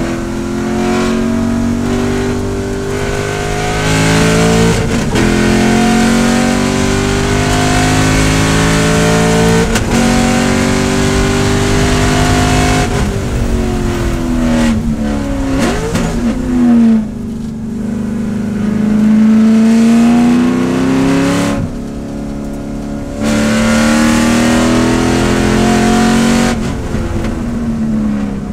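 C5 Corvette race car's 5.7-litre V8, heard from inside the cockpit, pulling hard through the gears. The pitch climbs in steps, broken by quick upshifts. The engine lifts off and downshifts for corners twice mid-way, then pulls hard again and lifts once more near the end.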